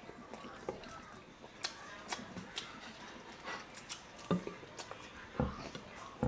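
People eating with their hands close to the microphone: chewing and lip smacks with scattered soft clicks, and a few louder low thumps about four and five and a half seconds in.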